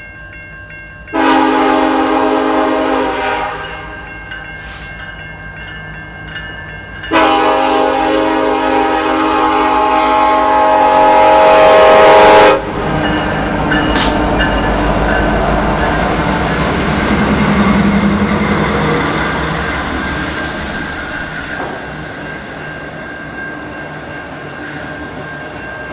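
CN SD70M-2 diesel locomotive's horn sounding for the grade crossing: a two-second blast, then a second blast held for about five seconds. It cuts off and the locomotives and freight cars roll past with a steady rumble and wheel clatter.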